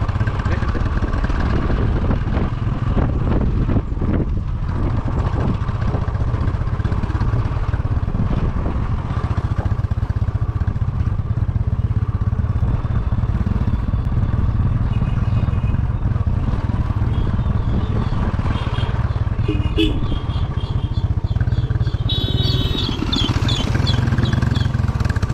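A motor vehicle's engine running steadily under a deep, constant rumble. A few short high-pitched tones sound near the end.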